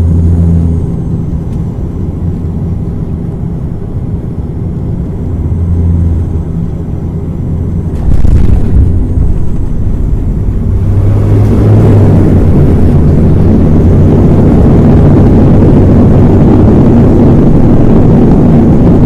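Airplane landing: a steady low engine rumble with a faint high whine, then a sudden thump about eight seconds in as it touches down, followed from about eleven seconds by a louder, broader roar that holds steady.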